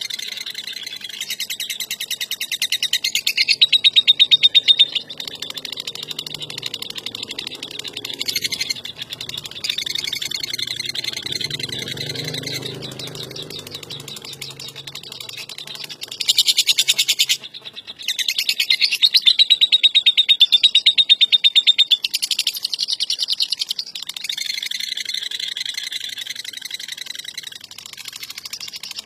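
Lovebird giving its long ngekek chatter: a continuous, rapid pulsing trill that swells louder a few seconds in and again over several seconds past the middle.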